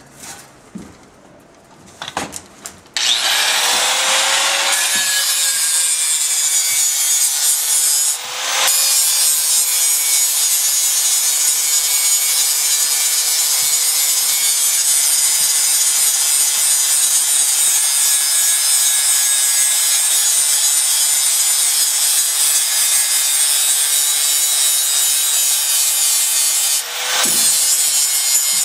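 A handheld angle grinder starts about three seconds in and grinds the joint of a steel band saw blade smooth: a steady, loud grinding hiss over the motor's whine, easing off briefly twice. A few light knocks come before it starts.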